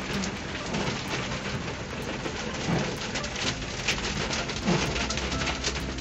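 Heavy rain hitting a car's roof and windscreen, heard from inside the car as a dense patter of sharp drop impacts. A windscreen wiper sweep recurs about every two seconds.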